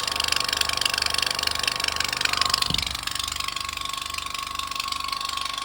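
High-pressure air compressor running as it fills an airgun air bottle toward 275 bar: a fast mechanical chatter with a steady whine. About halfway through there is a brief thump, and after it the compressor runs on a little quieter.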